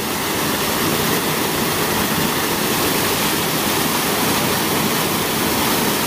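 Steady rush of water falling from a small falls and splashing into a shallow pool; the falls is the outflow of a reservoir dam.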